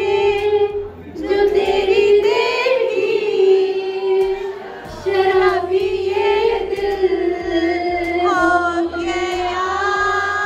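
High female voice singing long, drawn-out notes, with short breaks about a second in and again near the middle.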